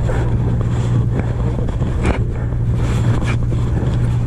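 Sportfishing boat's engine running with a steady low hum, with a few short clicks and knocks on deck.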